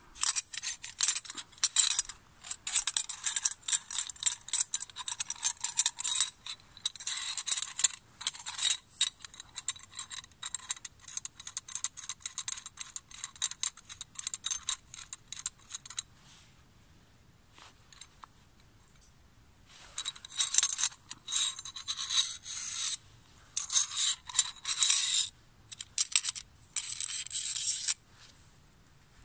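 The all-metal parts of a collapsible buck saw are scraped and clinked as they are worked out of its hollow metal handle tube, in bursts of scraping and clicks. A lull of a few seconds comes midway.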